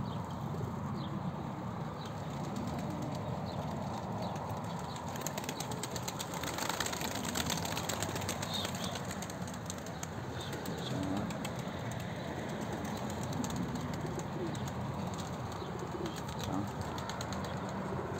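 Domestic pigeons cooing steadily, with a louder flurry of wing flapping about six to eight seconds in.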